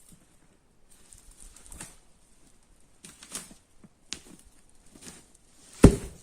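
Rustling and crunching on the forest floor as wood is hauled and handled, with one sharp, loud knock of wood near the end.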